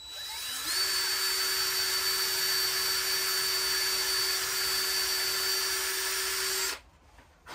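Cordless drill drilling a hole into the top of a small painted craft piece: the motor spins up over about the first second, runs at a steady high whine, and stops abruptly near the end.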